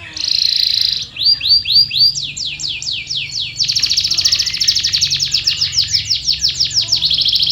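Canary singing a run of tours, each a phrase of one note repeated: a short buzzy trill, then downward-sliding whistled notes at about three a second that speed up, then a long rapid rolling trill from about halfway in.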